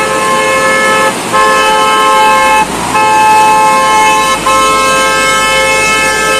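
Vehicle horn sounding in long held blasts, a chord of two tones, broken by three short gaps, about one, two and a half, and four seconds in.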